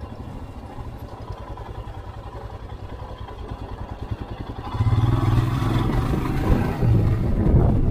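Motorcycle engine running at low speed through a turn, then pulling harder and louder about five seconds in as the bike speeds up, with wind noise rising.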